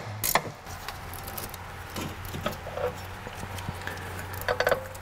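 Light metallic clicks and taps as a suspension bolt and the new rear upper control arm are handled and fitted at the rear knuckle: one sharp click at the start, a few faint ticks and a short cluster of clinks near the end. A steady low hum sits under them.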